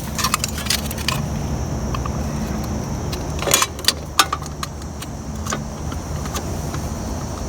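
Short clicks and light plastic clatter of a push mower's air filter and its cover being handled and refitted, with a sharper cluster of clicks about three and a half seconds in. A steady low rumble runs underneath.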